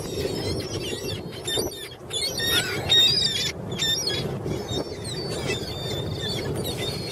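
A flock of gulls calling over one another with shrill squeals and cries, busiest about two and a half to three seconds in, over a steady low rushing noise.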